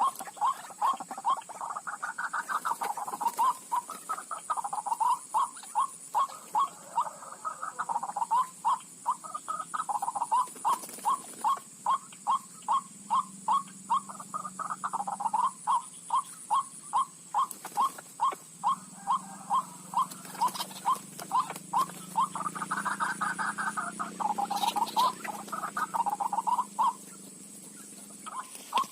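White-breasted waterhen (ruak-ruak) calling, with a rapid, steady string of short croaking notes about two to three a second and now and then a louder rolling phrase.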